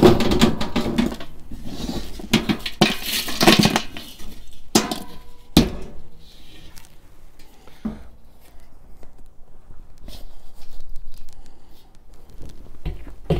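Metal ash pan from a Char-Griller Akorn kamado grill clanking and scraping as it is handled and emptied of ash. There is a sharp knock at the start, a stretch of scraping clatter a couple of seconds in, and two sharp clanks around five seconds, then lighter knocks.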